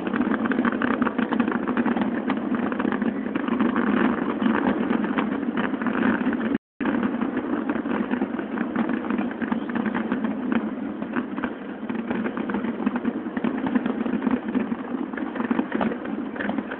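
A steady engine-like running rumble with a dense, rapid flutter, cutting out for a moment about seven seconds in.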